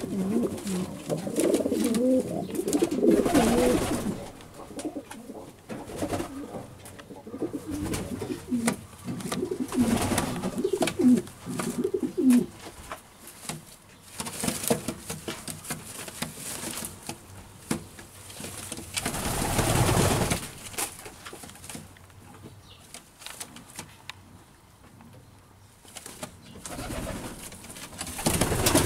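Hungarian Giant House pigeon cooing in warbling bouts, a long run in the first few seconds and another about a third of the way in. Short whooshing noises come in between, the loudest about two-thirds of the way through.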